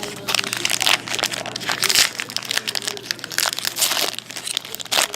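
Plastic wrapping crinkling and crackling in a rapid run of short rustles as a trading-card pack is opened.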